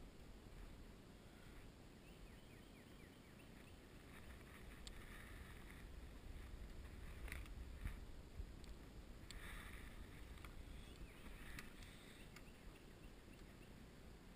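Faint sounds of a kayak being worked under a strand of barbed wire stretched across a creek: a low handling rumble with a few short raspy scrapes through the middle.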